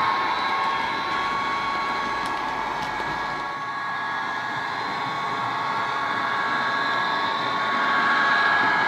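Sound-decoder recording of an Irish class 071 diesel locomotive's engine running, played through the model's small double speaker, a steady drone with a high whine. It drops a little in the middle and grows louder again near the end as the model comes closer.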